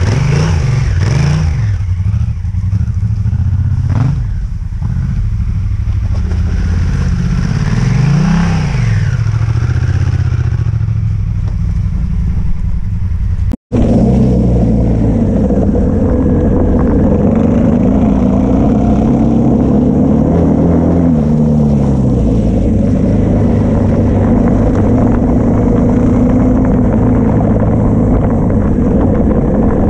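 Twin-cylinder adventure motorcycle engines. In the first half a bike revs up and down, its pitch rising and falling several times as it climbs through a muddy lane. After a sudden cut about halfway, an engine runs steadily with small changes in pitch while cruising along a gravel track.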